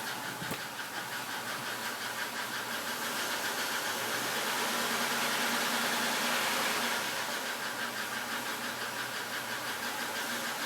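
1996 Buick Skylark's 3100 SFI V6 running with a rhythmic tick. It is revved up gradually from about three seconds in and drops back to idle at about seven seconds; the tick speeds up with the engine and is partly drowned out at the higher revs. The owner takes it for lifter tick or piston slap, loudest near the exhaust cover.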